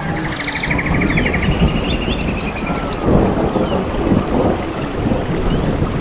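Rainforest birds calling over a loud, uneven low rumble. The calls include a rapid buzzy trill in the first second or two, then a series of short down-slurred whistles.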